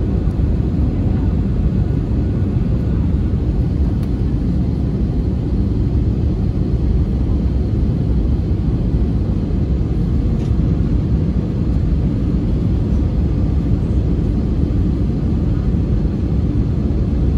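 Cabin noise inside an Airbus A320neo, seat behind the wing: a steady, mostly low-pitched rumble of airflow and the Pratt & Whitney PW1127G geared turbofan engines.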